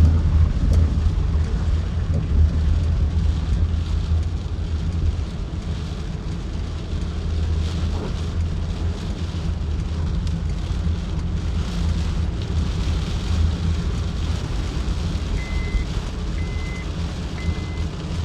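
Steady low rumble with a faint hiss of rain on top. Near the end three short high beeps sound about a second apart, an electronic beeper.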